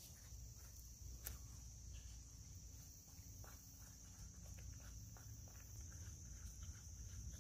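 Faint, steady high buzz of insects, with a few light taps and scrapes as a wooden stick stirs powdered charcoal into melted pine pitch in a metal tin.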